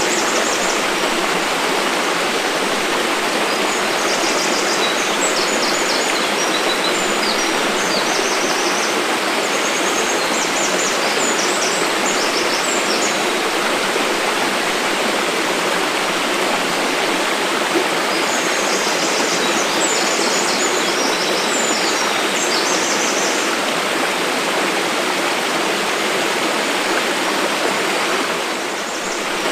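Mountain waterfall: a steady, dense rush of falling water. High-pitched chirping comes through it in two spells, about four seconds in and again after twenty seconds.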